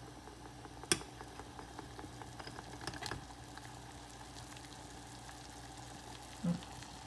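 Water at a full boil in a saucepan on the stove, a steady bubbling hiss. A sharp click about a second in and a few lighter clicks around three seconds come from a metal utensil knocking against the pot as it grips the thermostat and lifts it out.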